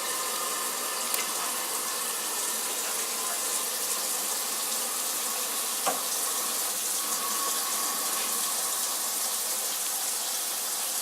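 Steady rushing hiss of a Navien NPE-180 tankless water heater running at low fire with its cover off while a hot tap draws water through it. The heater is modulated down to a small flame to meet the demand.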